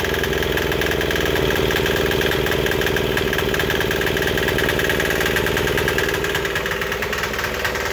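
Small Chinese 168F single-cylinder, air-cooled diesel engine running steadily on its break-in run, with an even pulse from the firing strokes.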